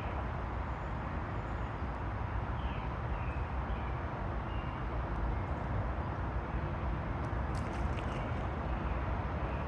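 Steady rushing outdoor noise of wind and creek water, heaviest in the low end. A few faint high chirps come in the first half, and a few light clicks come about eight seconds in.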